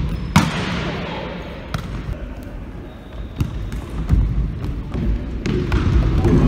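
Futsal ball being kicked and bouncing on a wooden sports-hall floor: a few sharp knocks that echo around the large hall.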